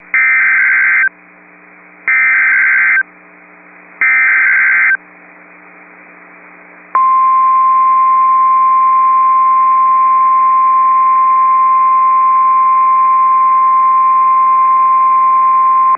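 Emergency Alert System weather radio alert tones. Three one-second bursts of SAME digital header data play about two seconds apart, encoding a tornado warning. About two seconds later, the single steady 1050 Hz NOAA Weather Radio warning alarm tone sounds and holds for about nine seconds.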